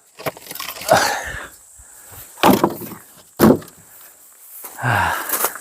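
Firewood being split with an axe: three separate sharp wooden knocks, about one to one and a half seconds apart.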